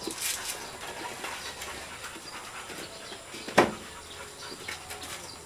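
A dog panting, with a single sharp knock about three and a half seconds in.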